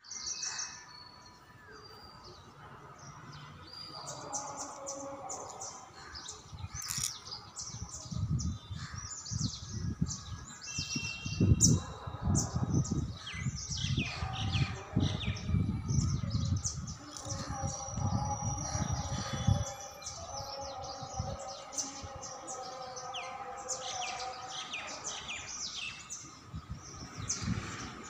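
Small birds chirping in quick, repeated short calls, with a low rumble on the microphone through the middle stretch.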